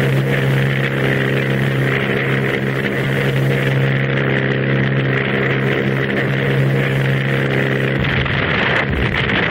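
Aircraft piston engines of Junkers Ju 87 Stuka dive bombers droning steadily in formation flight. Near the end the steady note gives way to a rougher, deeper rumble.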